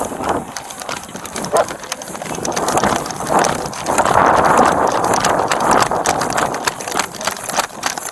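Running footsteps and the clatter of gear on a body-worn camera, quick repeated knocks, with a rushing hiss that swells in the middle of the run.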